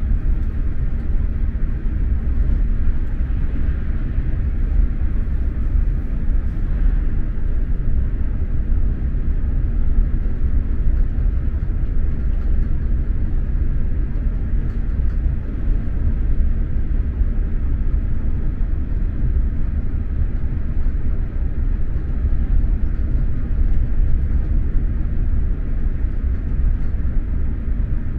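SJ X2000 high-speed train running along the line, heard from inside a passenger car as a steady low rumble of wheels and running gear.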